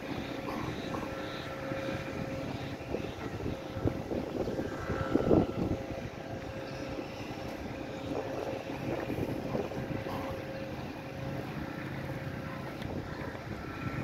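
Wind rumbling on the microphone outdoors, with a steady motor hum underneath and irregular knocks and bumps.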